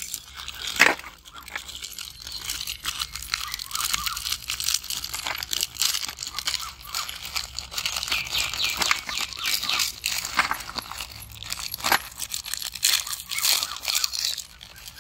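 Crinkling and tearing of plastic cookie wrappers as packets of Cadbury Chocobakes chocolate chip cookies are ripped open and the cookies tipped out, with a sharp rip about a second in.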